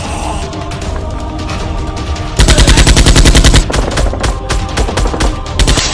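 Gunfire sound effects over background music: a rapid automatic burst starting about two and a half seconds in and lasting about a second, then scattered single shots.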